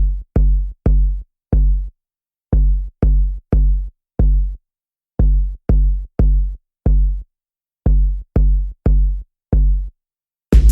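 Electronic background music: a deep bass note struck in groups of four with short pauses between the groups, then the full track with drums comes in near the end.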